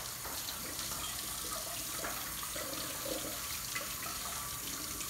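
A soaked plush toy being dipped and squeezed over a metal bowl of water, the water splashing and dripping back into the bowl as the toy is rinsed.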